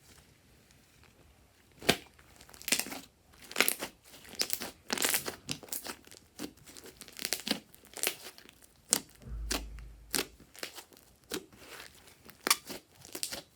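Fluffy slime being squeezed and stretched by hand, giving irregular crackling pops of trapped air about every half second after a quiet first two seconds, with a low thump about nine seconds in.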